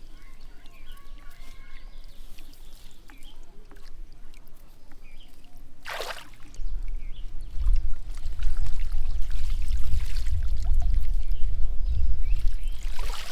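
Water trickling and pouring, with a short swishing splash about six seconds in. From just after it, a heavy low rumble on the microphone is the loudest sound.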